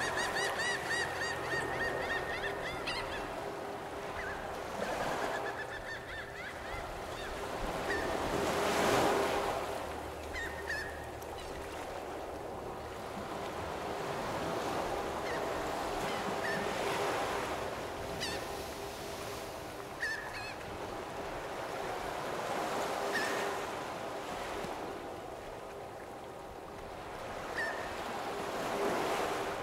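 Lake waves washing in, swelling and ebbing every few seconds, with geese and ducks giving short calls now and then.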